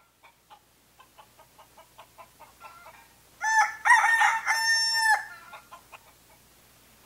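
Rooster clucking softly in a quick run of short notes, then crowing once, loudly, for nearly two seconds about three and a half seconds in, followed by a few more faint clucks.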